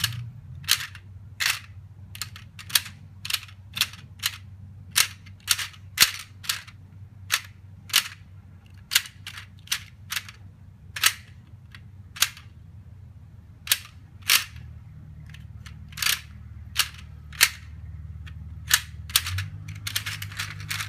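Hard plastic puzzle pieces (toy cars) clicking sharply as they are set down and pushed into place in a plastic tray, irregularly, about one or two clicks a second, over a steady low hum.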